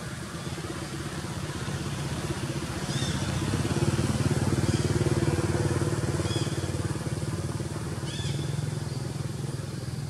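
A motorcycle engine runs steadily nearby, getting louder toward the middle as it passes and then fading off. A few short high chirps sound over it.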